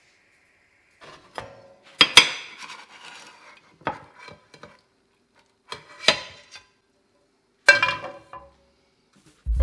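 Nonstick frying pan clanking and scraping against the gas stove's cast-iron grate and a ceramic plate in a handful of separate knocks, the loudest about two seconds in, as a potato cake is slid out of the pan onto the plate.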